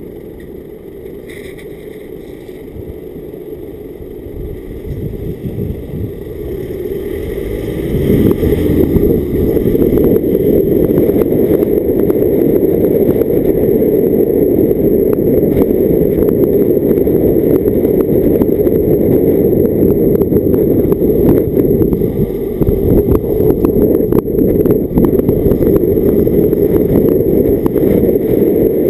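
Car driving along a lane, heard through a camera mounted on its bonnet: rough wind buffeting and road noise, quieter at first, growing louder over the first eight seconds or so, then steady and loud.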